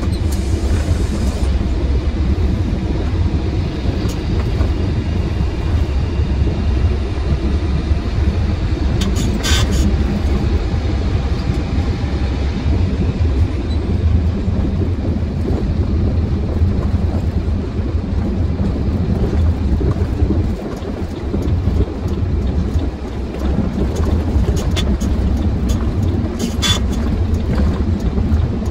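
Inside a truck cab while driving: the truck's engine and road noise make a steady low rumble. Two brief sharp clicks or rattles come through, about nine seconds in and again near the end.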